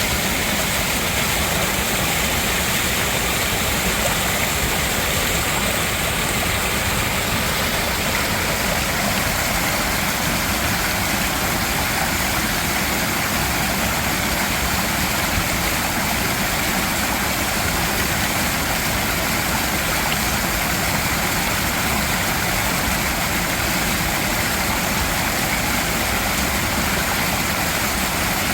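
Mountain valley stream rushing over rocks, a loud, steady, unbroken flow of water.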